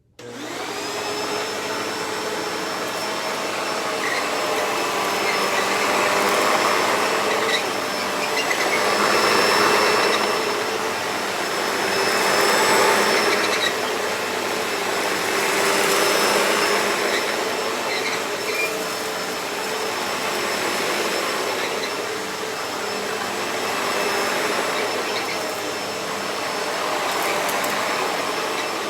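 Hoover Deluxe Elite Rewind vacuum cleaner switched on, its motor starting suddenly and running with a steady high whine. The noise swells and falls every few seconds.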